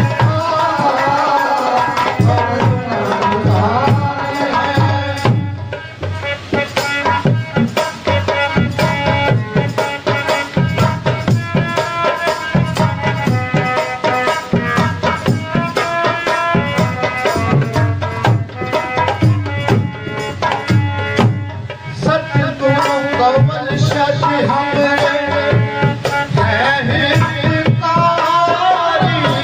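Live devotional bhajan with a harmonium and dholak drums keeping a steady beat. A man's voice sings at the start and again near the end; in between, the harmonium carries the tune over the drums.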